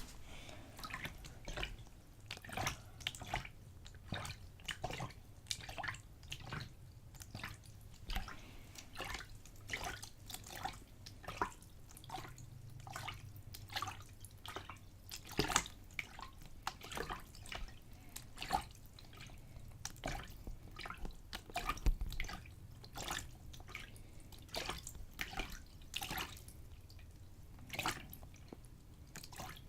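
A little water splashed back and forth in a container, in short, irregular splashes and drips several times a second.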